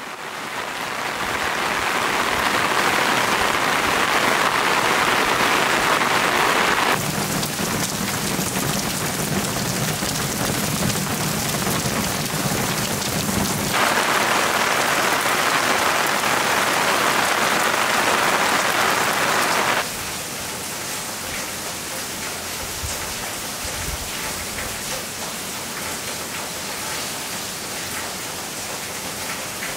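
Heavy rain pouring steadily, a dense hiss of rain on the ground and surrounding surfaces that fades in at the start. It shifts abruptly in tone and loudness a few times, and is softer and more even for the last third.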